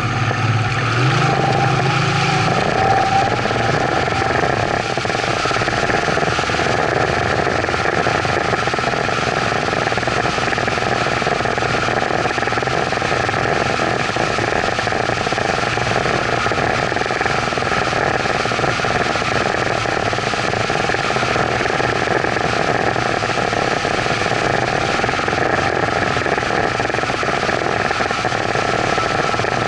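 Evinrude outboard motor throttling up in the first few seconds, then running steadily at speed while towing a kneeboard rider, with water rushing in the wake behind the boat.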